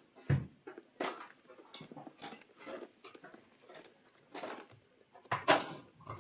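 A hockey card box and its packaging being handled and opened: scattered rustling, taps and scrapes of cardboard and plastic, with louder ones about a second in and near the end.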